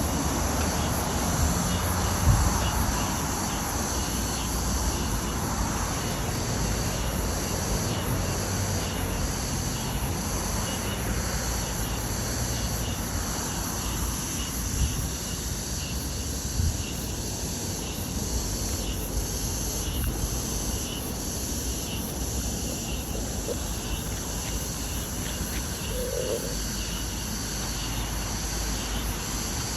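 Insects, crickets by the sound of them, chirping in a steady high drone, over a low rumble.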